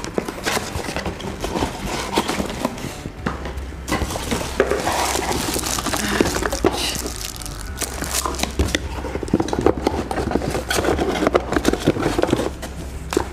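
Cardboard packaging being handled: box flaps opened and a cardboard insert pulled out, with many irregular rustles, scrapes and knocks, and the crinkle of the plastic bag wrapped around the coffee maker.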